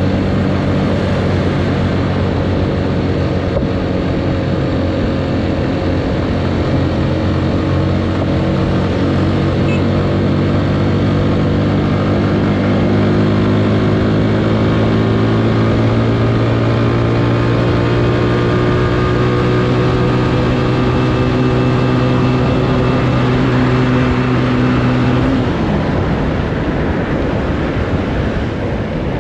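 Motorcycle engine running under steady throttle, its note slowly rising as the bike gathers speed, over wind rushing past the microphone. A few seconds before the end the engine note drops away, leaving mostly wind noise.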